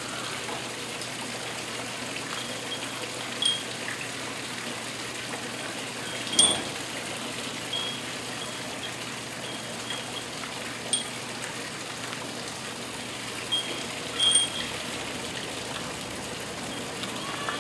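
Steady splashing of a small garden waterfall into a pond, with about half a dozen sharp metallic clinks of steel training rings knocking together on the forearms as the arms move, the loudest about six seconds in.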